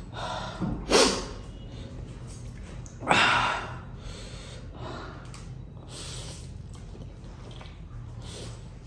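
A man loudly slurping up a mouthful of spicy instant noodles. There are two loud slurps, one about a second in and a longer one at about three seconds, then fainter mouth noises.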